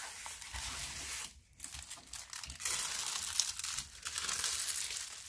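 The clear plastic film over a diamond painting canvas crinkles as hands move and smooth the canvas. It comes in two stretches, with a brief pause about a second and a half in.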